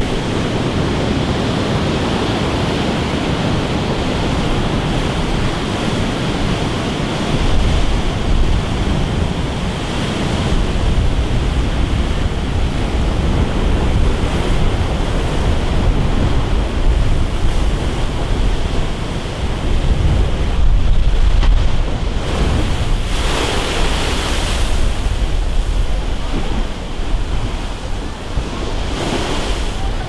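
Rough sea surf breaking and washing continuously, with wind buffeting the microphone as a low rumble. The surf swells louder about two-thirds of the way through and again near the end.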